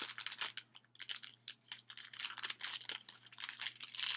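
Packaging crinkling and rustling with quick small clicks and scrapes, irregular and continuous, as a packaged set of makeup brushes is handled.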